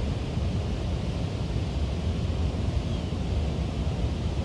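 Strong wind blowing across the microphone: a steady low rumble with a fainter hiss over it.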